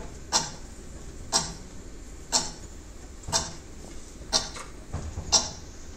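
Ticking clock sound effect: one sharp tick about every second, evenly paced.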